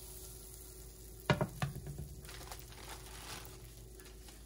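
Butter sizzling in a frying pan for French toast. About a second in there are two sharp knocks on the pan, and after them the sizzle swells for a second or so.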